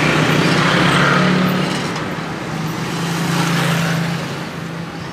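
A motor vehicle engine running with a steady low hum. It swells in loudness twice, then fades.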